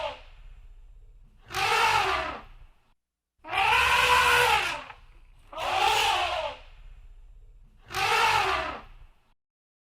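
Elephant trumpeting: four loud blasts about two seconds apart, each lasting a little over a second, with the pitch rising and then falling in each.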